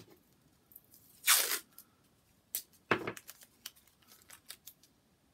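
Masking tape being peeled off paper: a half-second rip about a second in and a shorter, sharper one near three seconds, then light rustling and taps as the tape is pressed back down.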